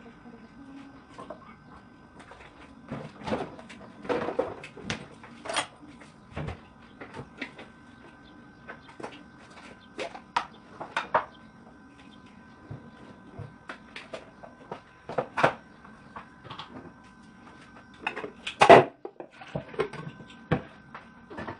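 Scattered knocks and clinks of a spoon, plastic lids and pots being handled during kitchen preparation, the loudest knock coming near the end. A faint steady high hum runs underneath.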